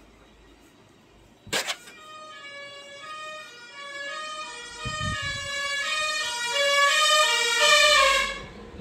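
A sharp click, then an electronic melody of stepping notes that grows steadily louder and cuts off suddenly near the end.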